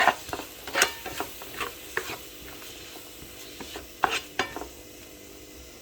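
Spoon stirring and scraping in a frying pan with a light sizzle of hot oil, as turmeric and chili powder are mixed into the curry. A quick run of scrapes and clinks in the first couple of seconds, two more about four seconds in.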